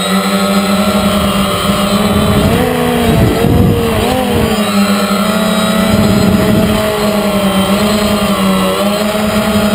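DJI Phantom quadcopter's electric motors and propellers buzzing steadily, heard close up from the camera mounted on the drone. A few seconds in, the pitch wavers and shifts for a second or two as the drone banks and turns.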